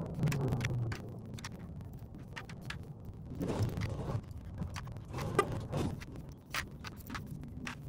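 Small insulated plastic crimp terminals clicking, a few at a time, as they are picked by hand and dropped into a plastic organizer box, with bouts of rustling as they are gathered up.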